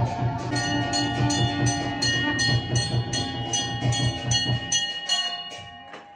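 Temple aarti bells struck in a steady rhythm, about two to three strokes a second, over a steady drum beat, with ringing tones held underneath; the beating dies away near the end.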